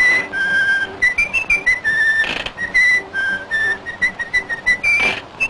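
A tune whistled as a quick run of short notes jumping up and down, over faint backing, as a theme laid under the intro.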